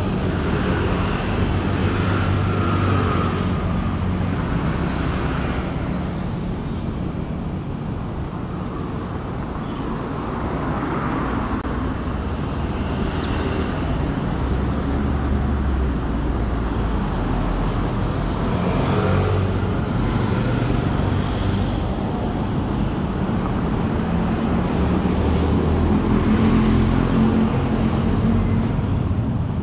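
Road traffic: motor vehicles running and passing, a steady low rumble that swells now and then as vehicles go by.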